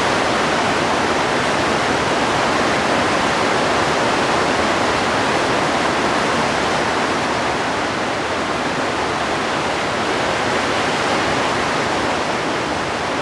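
Heavy rain falling, a steady loud hiss with no letup.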